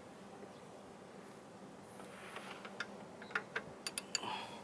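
A scattering of light, sharp metallic clicks and taps from hand work in the engine bay, tools and parts being handled. The clicks start about two seconds in, about eight of them, with the engine off.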